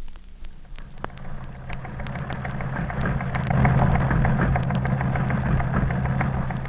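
Teletype machine printing: a rapid clatter of type strikes over the steady hum of its motor, growing louder about three seconds in.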